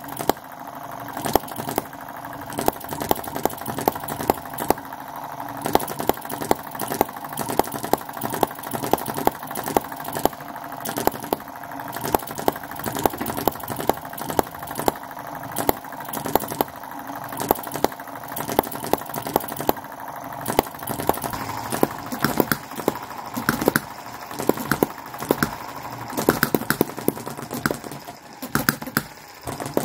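Miniature petrol hit-and-miss model engine running, firing as a stream of sharp, irregular pops with brief gaps where it coasts between firings; the owner finds it short of power.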